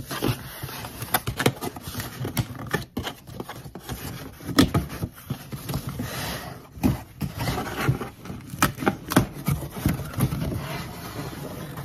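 A cardboard shipping box being opened by hand: its flaps are pulled back and torn, with scraping and rustling of cardboard and many irregular clicks and knocks.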